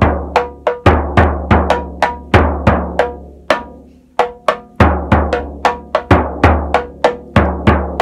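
A large and a small hand-held frame drum struck in turn with a soft mallet, about two to three strokes a second. The big drum gives a deep low note and the small drum a higher ringing note, showing that the bigger drum sounds lower.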